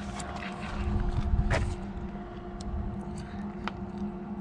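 A steady mechanical hum, like an engine running nearby, with a louder low rumble about a second in and a few scattered sharp clicks.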